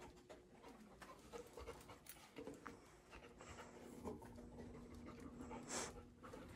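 Faint panting of a dog working a scent search. There is a short, louder rush of breath near the end.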